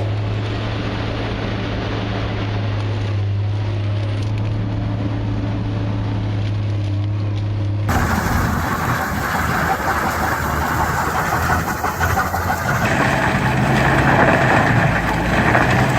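Stump grinder running: first a steady, deep engine hum, then, about halfway, an abrupt change to a louder, harsher grinding noise.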